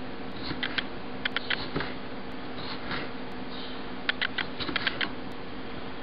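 Kitchen knife slicing a tomato on a wooden cutting board, the blade striking the board in short runs of quick, light clicks several times. A faint steady hum underneath.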